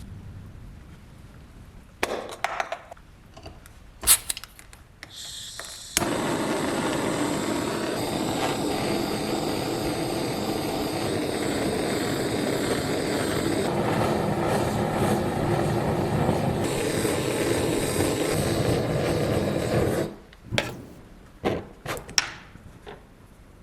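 A workshop power tool running steadily for about fourteen seconds, starting and stopping abruptly, with small metal parts being handled in clicks and knocks before and after.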